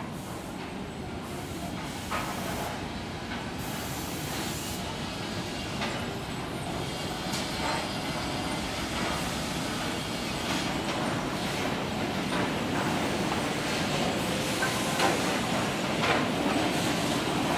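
Woodworking factory machinery running: a steady mechanical hum and hiss with scattered knocks and clatter of wood, growing gradually louder.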